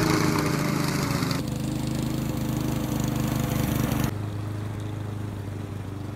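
Single-cylinder engine of a gas walk-behind lawn mower running steadily at constant speed as the mower rolls away on its own. It grows fainter in two steps, about a second in and again about four seconds in.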